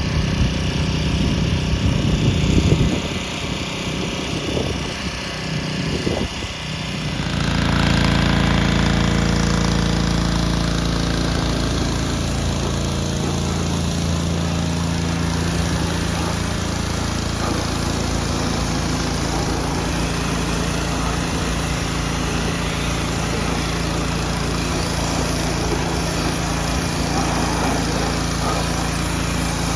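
Pressure washer's small petrol engine running, uneven at first, then settling into a steady, slightly louder drone about seven seconds in.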